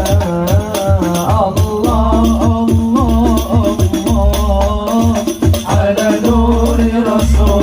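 Sholawat singing: a voice sings an Arabic devotional melody in wavering, ornamented lines over hadrah percussion of frame drums with jingles and a deep bass drum in a steady beat.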